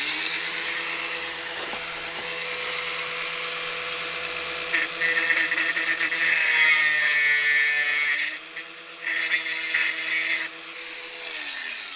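Angle grinder with a thin cutting disc running, then cutting through a metal model railway rail in two passes: the first from about five seconds in, and a shorter one near the end. The motor then winds down.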